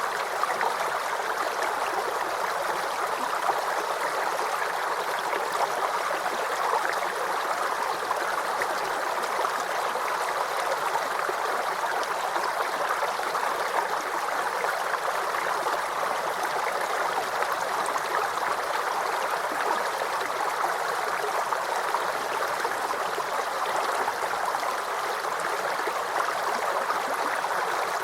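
Small creek babbling and gurgling over stones, a steady rush of running water with fine trickles and splashes.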